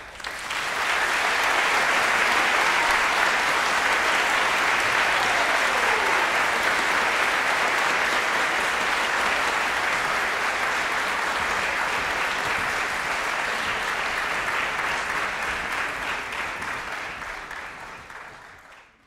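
Audience applauding, starting suddenly and holding steady, then fading out near the end.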